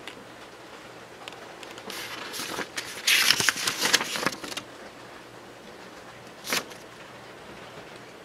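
Paper pages of a small printed instruction booklet being turned by hand. The rustling builds about two seconds in, is loudest for a second or so around the middle, and there is one more short rustle a little later.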